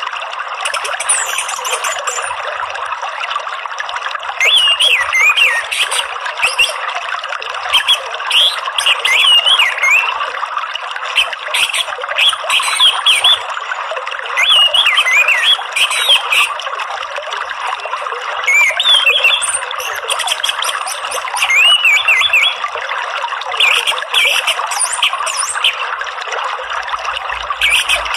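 Steady running water with songbird calls over it: short, quick chirps and whistled notes, scattered every second or two. This is a calming water-sound track of the kind played to captive songbirds.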